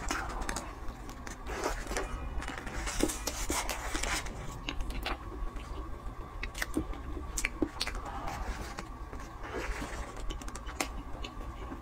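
Close-miked eating of a soft cream-filled sponge cake: a bite, then moist chewing and mouth clicks, with the paper wrapper rustling and crinkling in short patches.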